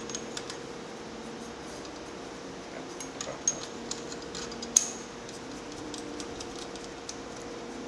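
Small metallic clicks and taps from a brass trumpet's piston valves being fitted into their valve casings, with one sharper click about five seconds in. A steady faint hum runs underneath.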